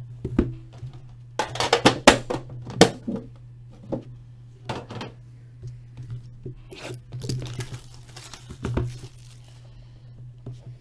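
Plastic wrapping being torn open and crinkled, as a sealed hockey card box is unwrapped. There is a dense run of loud rips in the first few seconds, then scattered crinkles.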